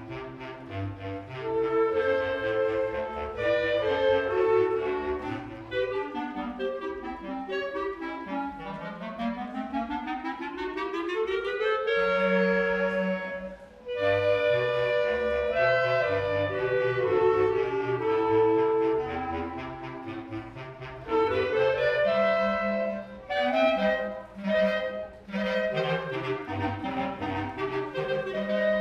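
A clarinet choir plays a hymn in harmony, several clarinet parts moving together. Partway through, a rising run climbs steadily for about three seconds, and the music briefly drops off about halfway through before coming back in.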